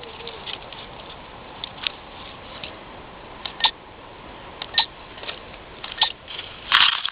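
Grass and twigs crackling and scratching against the onboard camera of a downed RC model plane, over a steady hiss: scattered clicks, a few louder ones about a second apart, and a denser rustling burst near the end.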